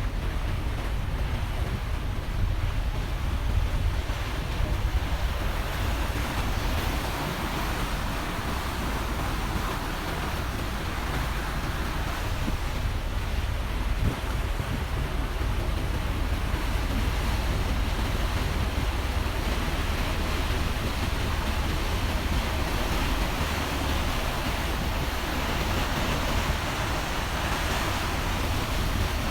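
Steady low rumble of a ferry under way, with water rushing along the hull and wind buffeting the microphone.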